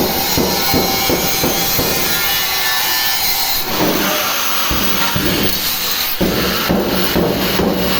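Continuous harsh, rasping noise of steel being cut. It changes in texture about three and a half seconds in and again around six seconds.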